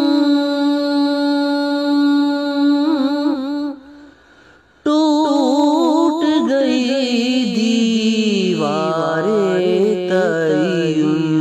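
A solo voice singing a Sufi devotional song in Urdu. It holds one long steady note for about three and a half seconds and breaks off briefly about four seconds in. It then comes back with an ornamented, wavering run that slides down in pitch.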